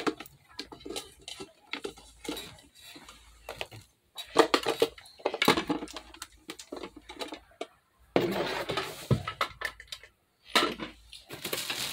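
The hard plastic body and parts of a portable sauna's steam generator clicking and knocking as they are handled, in clusters of clatter with a few short pauses.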